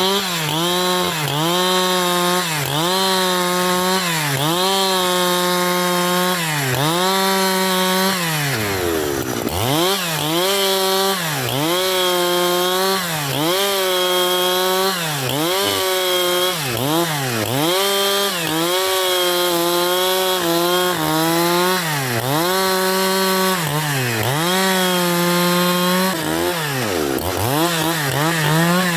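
Husqvarna 372XP two-stroke chainsaw revved to full throttle and let back over and over, roughly once a second, the engine pitch climbing, holding briefly at the top and falling away. A few times it drops almost to idle before climbing again.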